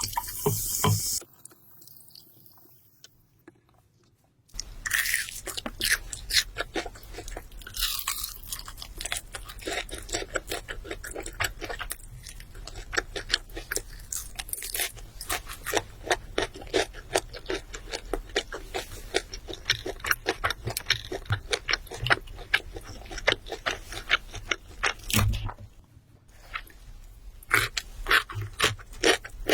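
Close-miked crunchy chewing of fried chicken: rapid crisp crunches that stop briefly near the start and again about 26 seconds in.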